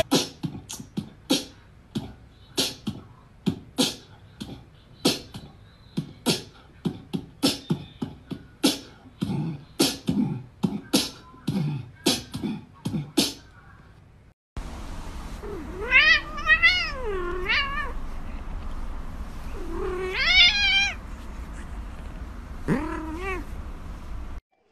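A quick run of short crunching thuds, about two a second, for the first half. Then a cat gives three long, wavering yowls that rise and fall in pitch.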